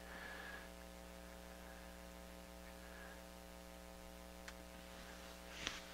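Faint, steady electrical mains hum under otherwise near silence, with a single faint tick about four and a half seconds in.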